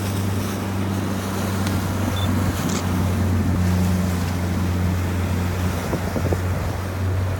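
Motorboat engine running at a steady low hum, with wind on the microphone and water rushing past the hull.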